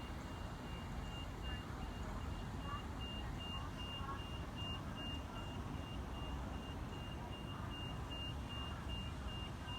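A high electronic beep repeating rapidly and evenly, like a warning signal, over a steady low rumble.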